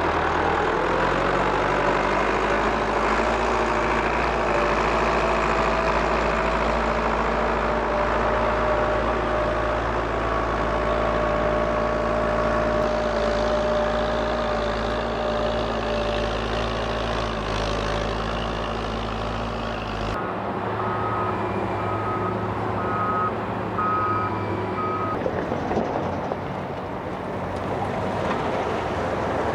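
Heavy construction machine's diesel engine running steadily. About two-thirds of the way in the engine sound changes abruptly, and a reversing alarm beeps several short times while the machine backs up.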